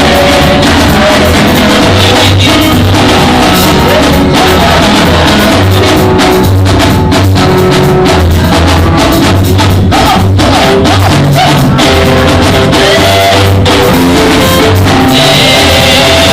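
Loud band music with drum kit, bass and guitar playing a steady upbeat praise song.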